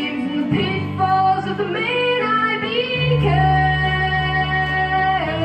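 A young boy's unbroken voice singing solo through a microphone over an instrumental accompaniment, holding one long note for about two seconds near the end.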